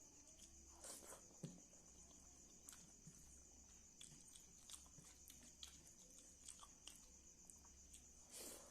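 Faint mouth sounds of a person eating: soft chewing with scattered small clicks and smacks, two of them a little louder, about a second in and near the end. A steady high-pitched electronic whine runs underneath.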